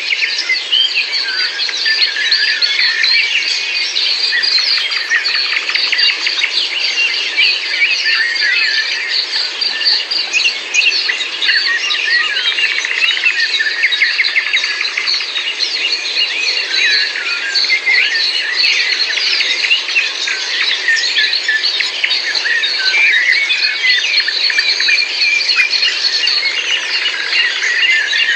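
A dense chorus of many small birds chirping and twittering without a break, over a steady background hiss.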